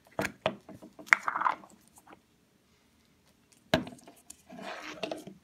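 A few sharp clicks and knocks of a plastic deodorant stick being handled, with a short breathy noise near the end.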